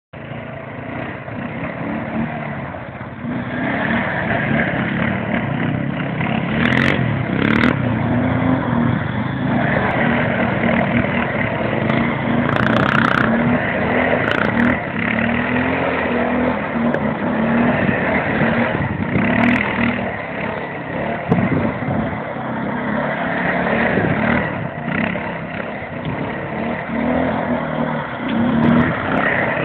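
Arctic Cat 550i ATV's single-cylinder engine revving up and down as the quad drifts and slides on loose dirt.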